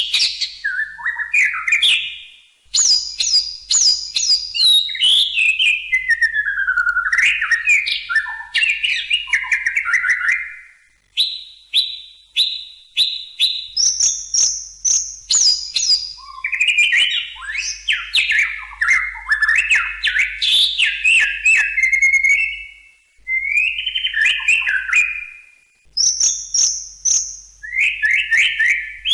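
White-rumped shama singing a long, varied song of fast runs of repeated notes, clear level whistles and sweeping phrases, with short pauses between the phrases.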